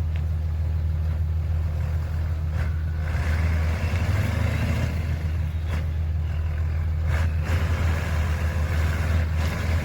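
Pickup truck engine running under load, a steady low drone that swells about three seconds in.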